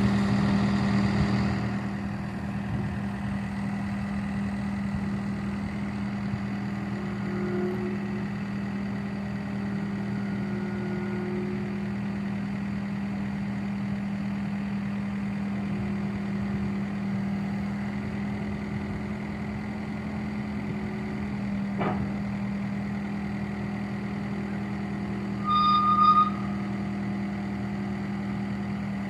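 John Deere 318G skid steer's diesel engine idling steadily, a little louder in the first two seconds. There is a sharp knock about three quarters of the way through, and a short loud beep, like the machine's warning or backup alarm, shortly after it.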